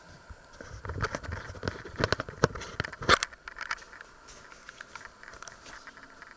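Handling noise of a camera being picked up and moved: a run of clicks, knocks and rubbing for about two seconds, loudest around three seconds in, then a few faint clicks.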